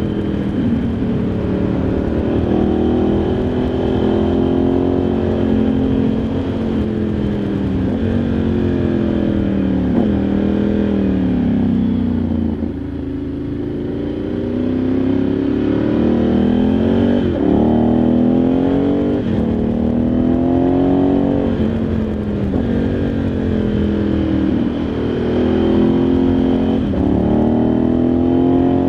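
Ducati Multistrada 1100S's air-cooled L-twin engine running under a rider's throttle. The pitch repeatedly climbs and then drops sharply at each gear change. Around the middle, the engine eases off with falling pitch, then pulls up through the gears again.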